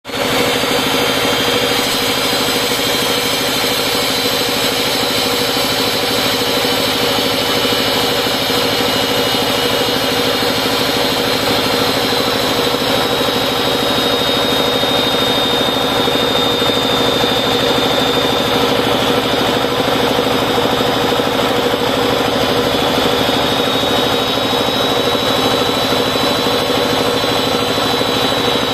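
Electric stand-mounted diamond core drill running steadily under load, its water-cooled core bit cutting into a bituminous (DBM) road surface, with a high, steady motor whine.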